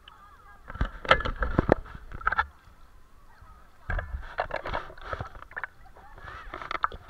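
Water splashing and sloshing close to the microphone as a kayak is paddled, in two bursts, about a second in and again about four seconds in.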